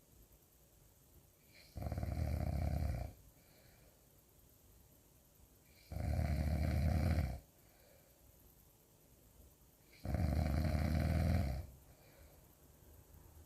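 Snoring, really loud: three long, deep snores about four seconds apart, with quiet breaths between.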